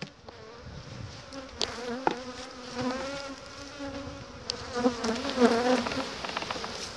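Honey bees buzzing around an open hive, with single bees flying close past so the buzz swells and bends up and down in pitch. A few light sharp clicks are heard in between.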